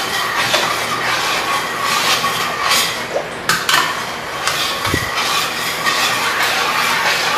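Long metal spoon stirring a thick cooked cornstarch mixture in a stainless steel pot, scraping and clinking against the pot's sides and bottom in an irregular rhythm, with a dull knock about five seconds in.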